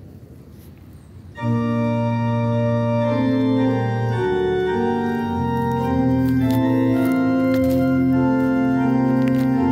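Faint outdoor background noise, then about a second and a half in, loud background music starts: slow held organ chords that change every second or so.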